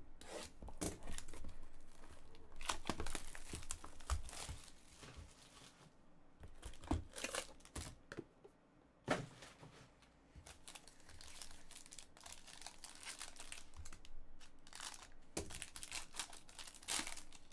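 Silver foil wrapper of a trading-card pack crinkling and tearing as it is opened by hand, in irregular crackles with short quiet gaps.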